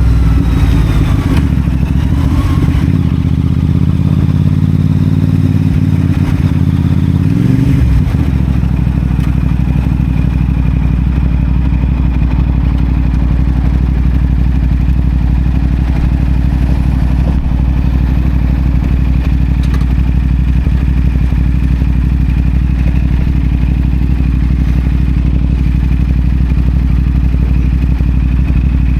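CFMoto 450SR's parallel-twin engine through a Yoshimura AT2 slip-on exhaust, running under way at moderate revs. About eight seconds in, the revs fall away quickly and it settles into a steady idle.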